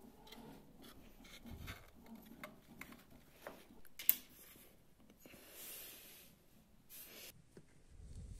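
Small model parts being handled on a workbench: light taps and clicks, one sharp click about four seconds in, and short rubbing or scraping sounds after it.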